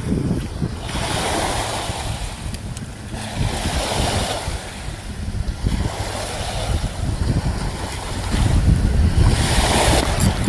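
Sea waves washing against the shore in repeated surges, with wind buffeting the microphone.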